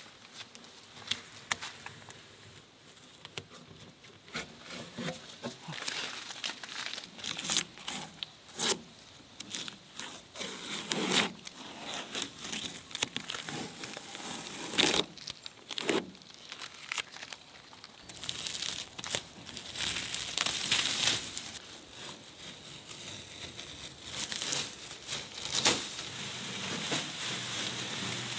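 Masking tape being peeled off freshly painted truck bodywork, with masking paper and plastic sheeting pulled away and crumpled: an irregular run of tearing rips and crinkling.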